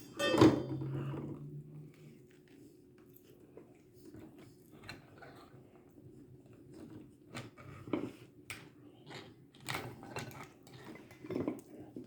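Dishes and cutlery clinking now and then, with chewing, during a meal. There is a louder burst with a brief low hum about half a second in.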